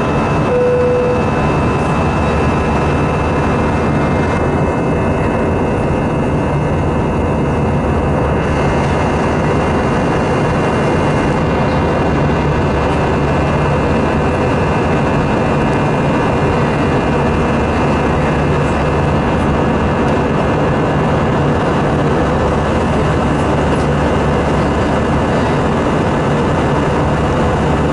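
Steady jet drone and air rush inside the cabin of an Airbus A319 in flight, seated over the wing beside a jet engine, with a few faint steady whining tones running through it. A short single-pitch tone sounds briefly at the very start.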